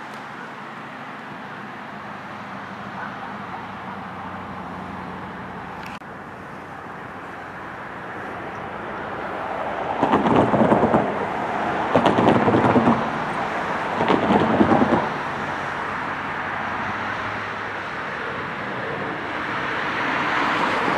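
Steady low rumble of an approaching SEPTA Silverliner V electric multiple-unit commuter train, broken by three loud gusts of wind buffeting the microphone about ten, twelve and fourteen seconds in, and swelling again at the end.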